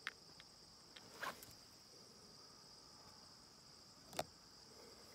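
Near silence with a faint, steady chirring of crickets. A few small taps and clicks break it, the sharpest about four seconds in.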